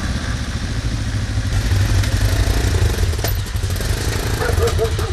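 Trail motorcycle's engine running steadily at low speed as the bike rolls slowly and pulls up, with a haze of wind noise over the helmet-mounted microphone.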